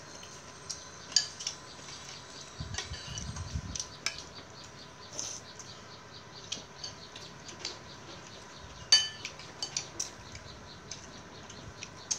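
Metal spoon clinking and scraping against a ceramic bowl of fish rice gruel, in scattered irregular taps, the sharpest clink about nine seconds in.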